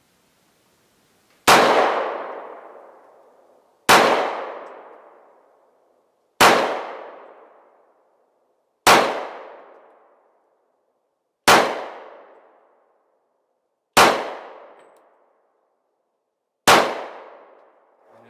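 Glock 30 .45 ACP pistol fired seven times in slow, evenly spaced shots, about two and a half seconds apart. Each shot is a sharp crack followed by a long fading echo.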